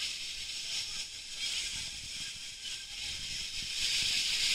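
Steady hiss of water spraying and pouring from a water-park play structure. It is fainter in the middle and rises again near the end, over a low uneven rumble.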